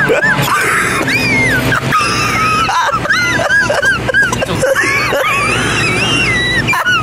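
High-pitched wheezing squeals: many short rising-and-falling cries in quick succession, over a steady musical hum.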